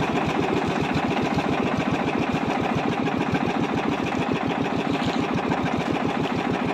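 Small outrigger fishing boat's engine running steadily under way, with a fast, even pulse.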